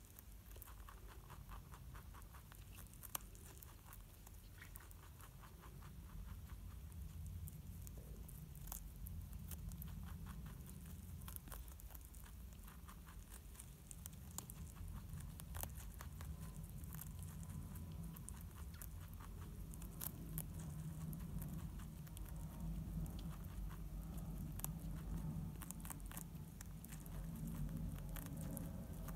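Dutch rabbit chewing a head of broccoli: a fast, faint run of crisp crunching clicks from its teeth, with a steady low hum underneath.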